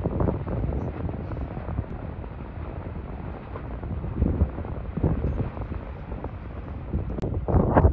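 Wind buffeting a phone microphone: a low, uneven rumbling noise that swells in gusts and grows louder near the end.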